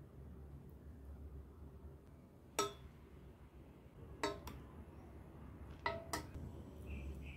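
A metal ladle clinking against ceramic bowls and a stainless steel pot while tomato slices are served, about five sharp, briefly ringing clinks spread over a few seconds, over a low steady room hum.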